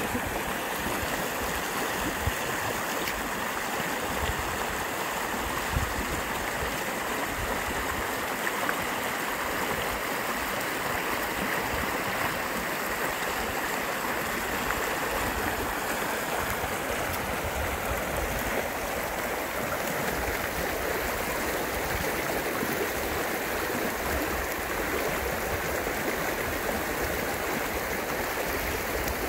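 Steady rushing of the Alamosa River, an even, unbroken sound of flowing water.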